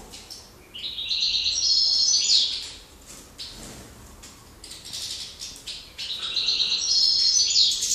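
Finch song in an aviary: two phrases of fast, high twittering, the first about a second in and the second starting near the end, with scattered short chirps and small clicks between them.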